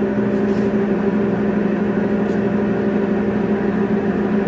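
Jet GH-1660R geared-head engine lathe running at a steady speed, a constant machine hum with steady pitched tones from the headstock gearing.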